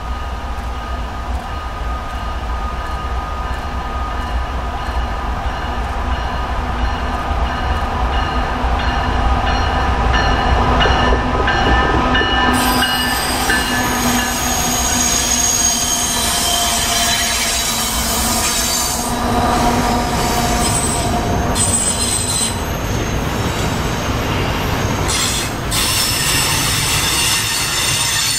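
BNSF diesel-hauled double-stack freight train approaching and passing on a curve. The locomotives' engines get louder as they draw near. From about halfway through, the wheels squeal against the curved rail in high, steady tones over the rumble of the cars.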